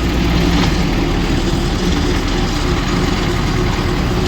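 Tata 407 Gold truck running steadily with an abnormal drivetrain noise, a sign of a fault in the gearbox and shaft.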